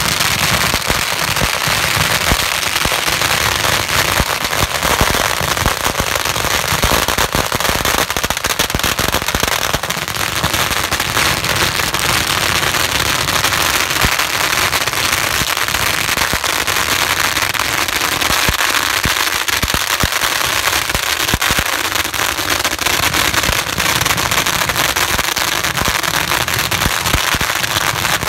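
Massed strings of firecrackers going off without a break: a dense, continuous crackle of rapid bangs.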